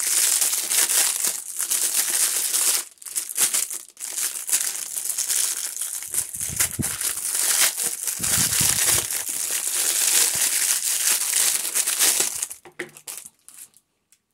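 Clear plastic packet crinkling loudly and continuously as a small silicone funnel is pulled out of it, with two brief pauses early on and a few dull handling bumps in the middle. The crinkling stops about two seconds before the end.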